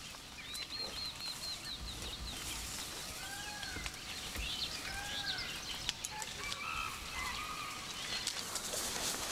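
Wild birds calling: a quick run of high, falling chirps near the start, then two arched calls a couple of seconds apart, with more scattered calls later.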